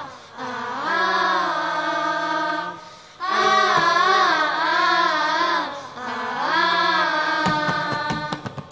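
A group of children singing a Tamil song together, in long melodic phrases with wavering, ornamented notes, and short breaks for breath about three seconds in and about six seconds in.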